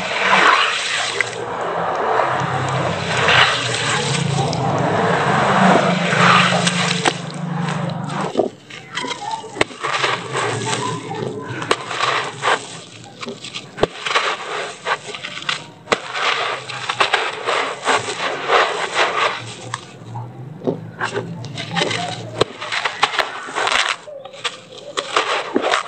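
Wet cement paste squished and sloshed by hand in water. From about eight seconds in, a dry cement-sand block is crumbled by hand, with many short crunching crackles as grit and powder fall into the water.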